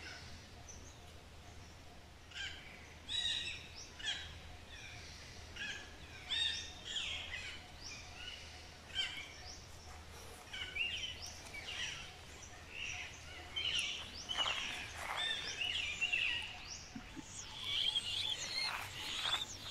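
Alexandrine parakeets calling: short, sharp, harsh calls repeated at irregular intervals, denser in the second half, over a faint low steady hum.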